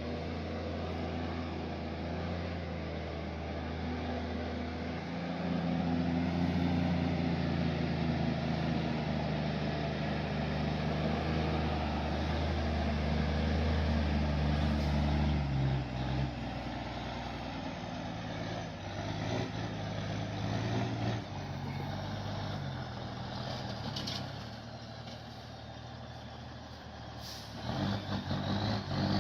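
Heavy truck engine running under load with a steady low note. About halfway through it falls quieter and uneven, then grows louder and rougher again near the end.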